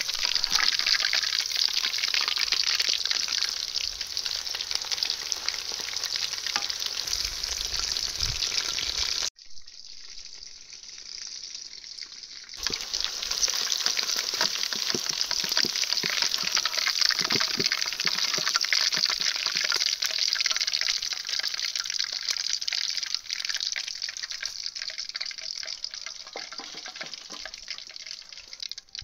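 Food sizzling and crackling in hot oil in a pan. About nine seconds in it drops suddenly to a quieter hiss for about three seconds, then the loud sizzle returns.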